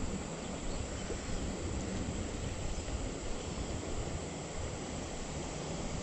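Steady rush of a shallow creek riffle, with wind rumbling on the microphone.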